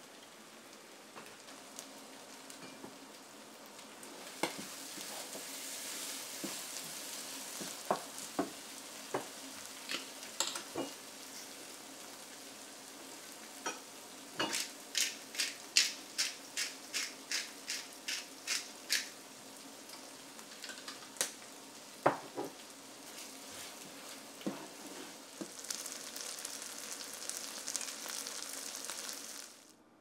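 Corned beef hash with diced potatoes sizzling as it fries in a non-stick pan, while a wooden spoon scrapes and knocks against the pan. There is a quick run of about a dozen knocks midway. The sizzling cuts off just before the end.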